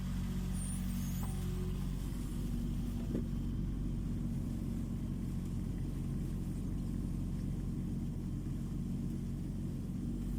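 Kubota U20 mini excavator's diesel engine running steadily under work, its note rising slightly about two and a half seconds in.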